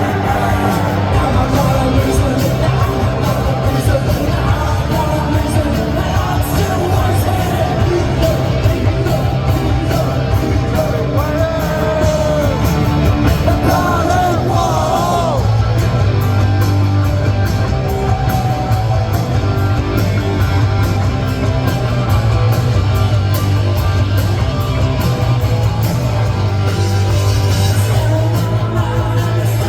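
Punk rock band playing live: a loud, steady wall of electric guitar, bass and drums, with a shouted, yelled lead vocal over it.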